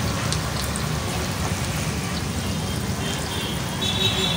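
Masala vada deep-frying in hot oil in a large iron kadai: a steady, crackling sizzle of bubbling oil, with faint high-pitched tones near the end.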